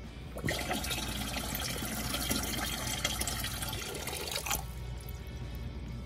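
Water pouring into a tower humidifier's open plastic tank, a steady rush that starts about half a second in and stops about four and a half seconds in.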